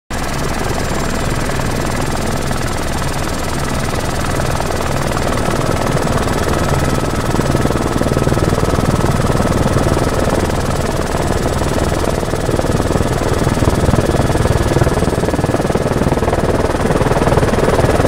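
Helicopter engine and rotor noise heard from inside the cabin: a loud, steady drone with a fast low throb.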